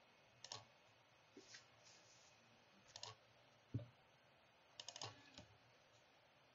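Faint clicks of a computer mouse and keyboard: a handful of short, scattered clicks, some in quick pairs, over near silence.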